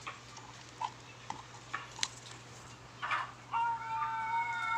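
A rooster crowing in the background, one long held call starting about three and a half seconds in. Before it, a few faint clicks.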